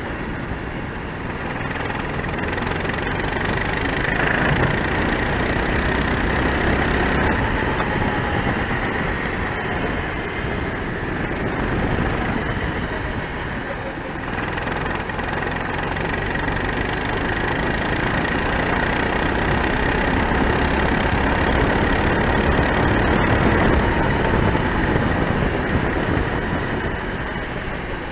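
Racing kart engine running flat out on an onboard camera, its pitch rising and falling as the kart accelerates and lifts for corners, with a steady hiss of wind and water spray from the wet track.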